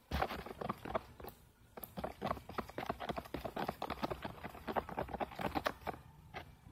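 A pencil stirring Elmer's glue and powder for slime in a small container, knocking against its sides in quick, irregular clicks and taps that start suddenly and ease off near the end.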